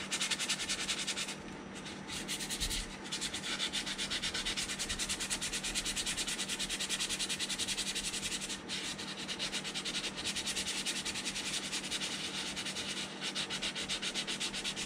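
180-grit sandpaper rubbed by hand over dried modelling putty on a plastic model hull. It goes in quick back-and-forth strokes, several a second, with short pauses near the start and about halfway through. The excess putty is being knocked down off filled hull seams before priming.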